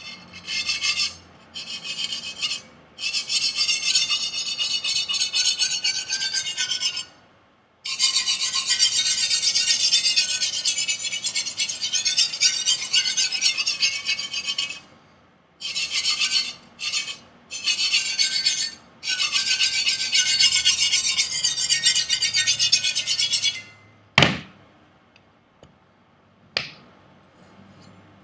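Chinese chef knife's steel edge rasped by hand on an abrasive in rapid back-and-forth strokes, in runs with short pauses, working out a rolled and micro-chipped factory edge. Two sharp clicks near the end.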